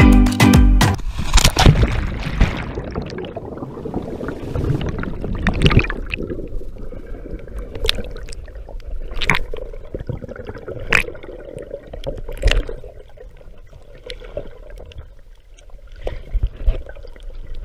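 Muffled underwater sound heard through a camera housing: bubbles gurgling over a low rumble of moving water, with a few sharp clicks now and then.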